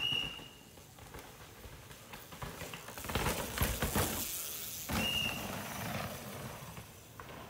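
A course marshal's whistle gives a short blast, then a downhill mountain bike rattles over rocks as it passes, loudest about three to four seconds in. A second short whistle blast comes about five seconds in. The marshals' whistles signal that a rider is going past.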